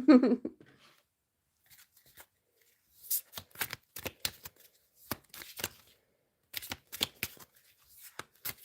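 A deck of cards being shuffled by hand: short runs of quick, crisp card clicks, coming in several bursts from about three seconds in.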